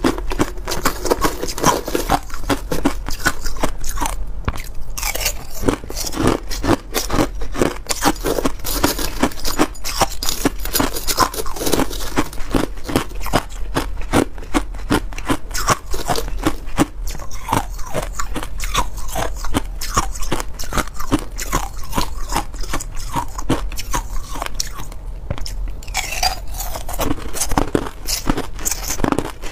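Crushed ice being bitten and chewed close to a lapel microphone: dense, continuous crunching and cracking.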